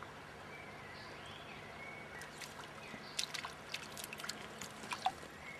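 A small hooked bait fish splashing and flapping at the water's surface, a run of irregular sharp splashes over the second half, over faint bird chirps.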